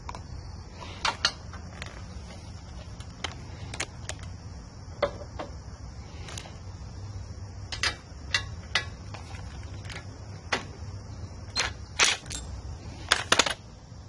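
Irregular sharp clicks and knocks of hand tools and metal parts being handled while a spark plug is taken out of a small mower engine, the loudest few packed together near the end. A steady high hiss and a low hum run underneath.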